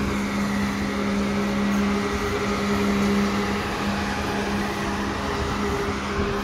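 Steady low drone of running machinery, one unchanging hummed tone with a fainter overtone above it, over a general outdoor noise with wind rumbling on the microphone.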